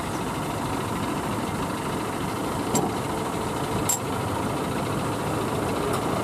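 Heavy lorry's diesel engine running steadily under load on a muddy ramp, with two short clicks about a second apart midway through.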